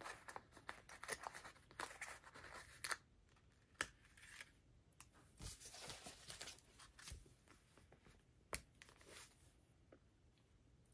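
Faint rustling and light taps of paper sticker sheets being handled, in short scattered bursts.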